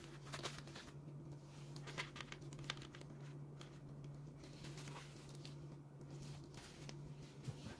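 Plastic bubble mailer crinkling and crackling irregularly as it is handled, over a steady low hum.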